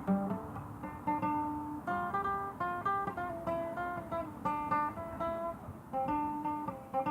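Acoustic guitar played solo, a run of individually picked notes at a steady pace.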